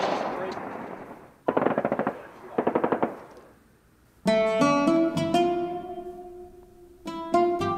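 A fading rush of noise, then two short bursts of rapid rattling clicks, about a second and a half and two and a half seconds in. After a brief pause, plucked guitar chords ring out and die away from about halfway through, with fresh notes near the end.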